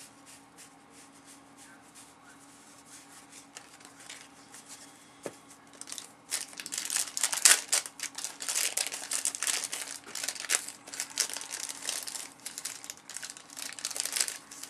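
Cellophane wrapper of a 1990-91 Fleer basketball cello pack crinkling as it is handled and torn open. A dense crackle starts about six seconds in, after a quiet stretch.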